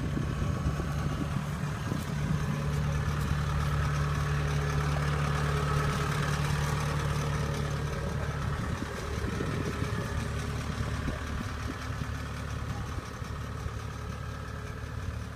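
Kubota combine harvester's diesel engine running steadily at idle, heard up close.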